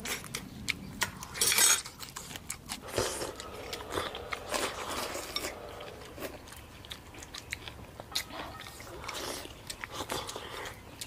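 Eating sounds: utensils clicking against bowls and dishes many times at irregular moments, with chewing in between.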